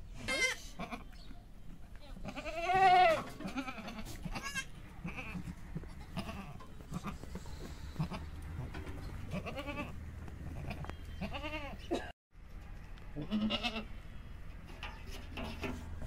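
Goat bleating several times in separate calls, the loudest and longest about three seconds in.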